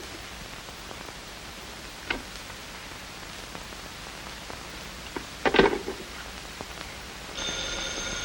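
Steady hiss of an old television soundtrack with a couple of faint clicks; about seven and a half seconds in, a telephone bell starts ringing.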